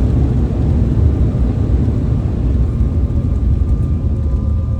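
Airliner cabin noise during landing: a loud, steady low rumble of the jet's engines and airflow heard from inside the cabin, with faint steady tones joining about halfway through.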